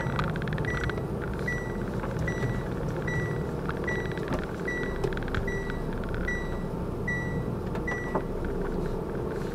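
Reversing alarm beeping: one high steady beep a little more often than once a second, stopping near the end, over the low steady running of a truck engine as the lorry manoeuvres.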